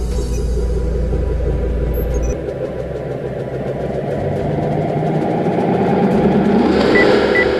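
Sci-fi soundtrack sound design: a deep rumble that swells louder and rises in pitch. Evenly spaced high electronic beeps start near the end.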